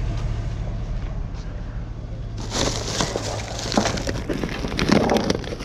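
A low, steady vehicle hum, then from about two and a half seconds in a jumble of clattering, knocking and rustling as things are handled and moved.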